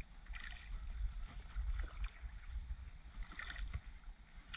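Water splashing and gurgling as a small plastic boat is hand-paddled across a weedy pond, three strokes about a second and a half apart, over a steady low rumble.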